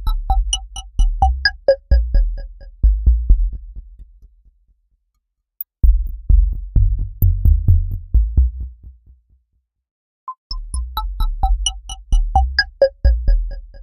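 Electronic music: short synthesizer notes over a deep bass line and a drum-machine beat, cutting out completely twice for about a second each.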